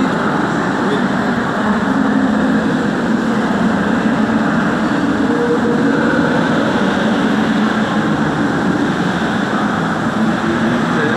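A steady, even rumbling noise.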